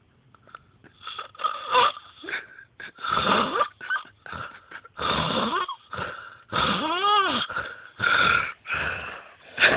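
A man snoring heavily in his sleep: after a quiet first second, a quick, uneven run of rough snores and snorts, one about seven seconds in carrying a pitch that rises and then falls.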